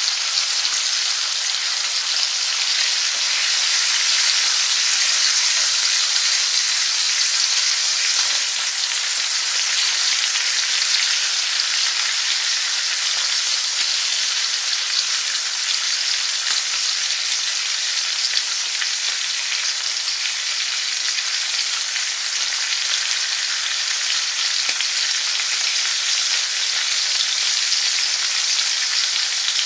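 Food frying in hot oil in a pan: a steady, even sizzle.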